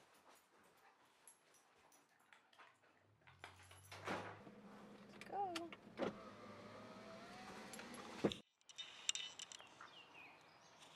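Faint sounds from inside a car. There is a thud about four seconds in, then a steady motor whine for about two seconds that cuts off suddenly, with light clicks and rustles before and after.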